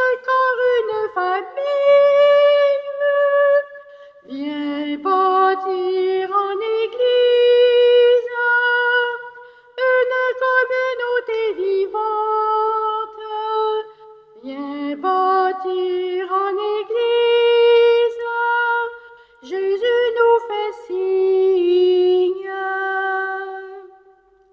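A solo voice singing a slow hymn in four long phrases of held notes, with short breaks between the phrases; the last note fades out near the end.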